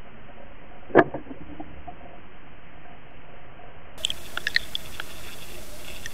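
Water noise picked up by a Water Wolf underwater camera's housing as it moves through the water, with one sharp knock about a second in and a short run of clicks and ticks about four seconds in.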